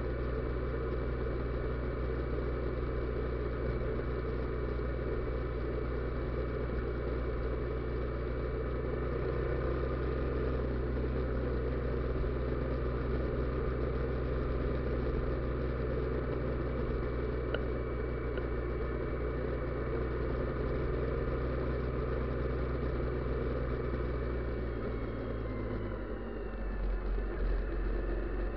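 Bajaj Pulsar motorcycle's single-cylinder engine running steadily, its note dropping near the end.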